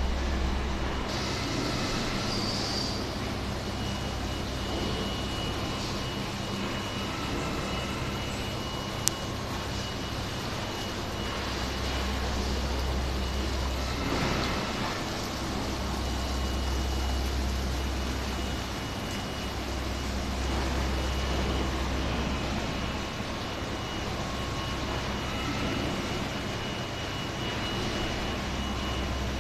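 Steady running of a membrane bioreactor sewage treatment plant's machinery, with a constant low rumble and a faint steady high tone, over aerated sludge churning in the tank. A single sharp click about nine seconds in.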